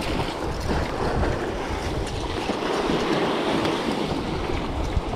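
Sea surf washing and breaking against rocks, a steady rushing noise, with wind buffeting the microphone.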